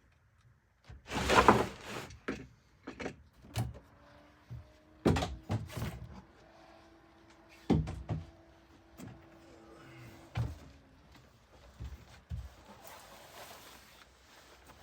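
Knocks, thuds and a sliding scrape from climbing aboard a small fibreglass sailboat and opening its cabin hatch. The loudest is a scraping rush about a second in, followed by separate knocks every second or two.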